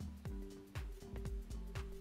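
Background music with a steady beat of about two a second over held chords.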